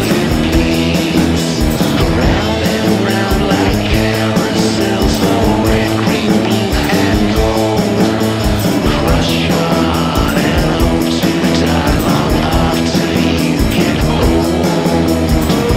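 Rock song recording playing, with a steady, fast drum beat under a dense band sound.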